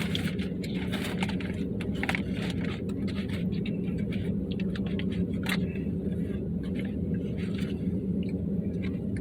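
Steady low hum of an idling vehicle engine, with scattered scrapes and clicks of utensils and takeout containers.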